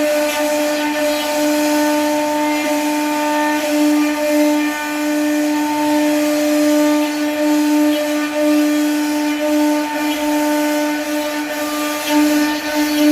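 CNC router spindle running with a steady whine as it carves wood.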